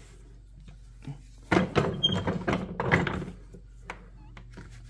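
Handling knocks and scrapes as a polycarbonate ball is pressed and shifted between the foam-padded wooden jaws of a bench vise: a cluster of clunks about a second and a half in, then a few light taps.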